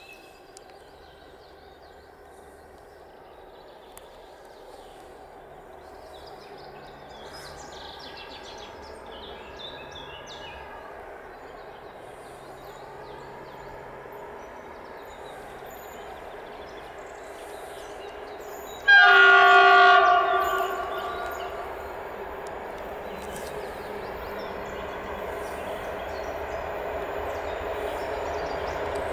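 Approaching freight train of coal wagons behind a 201Eo (ET22-type) electric locomotive, its rumble slowly growing louder. About two-thirds through, the locomotive sounds one loud horn blast lasting about two seconds, after which the rolling noise of the wheels and wagons keeps rising as it nears.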